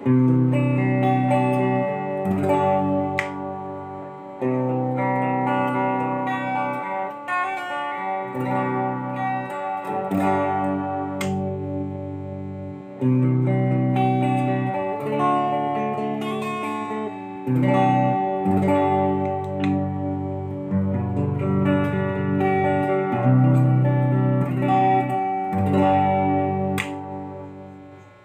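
Essex Les Paul-style electric guitar playing chords, each struck and left to ring, changing every couple of seconds; the last chord dies away near the end.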